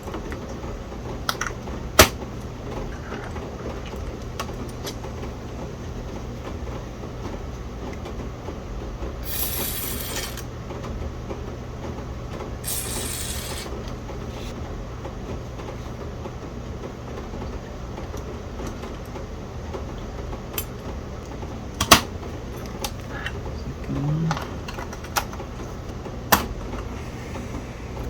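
Two short hisses of an aerosol contact-cleaner spray (DeoxIT D5), about a second each, a few seconds apart, among scattered sharp clicks and taps of small parts and tools on the circuit board, over a steady low hum.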